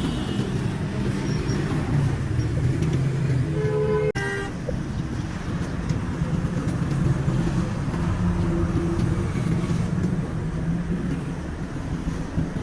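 Road traffic with a steady engine drone, and a vehicle horn honking briefly about four seconds in.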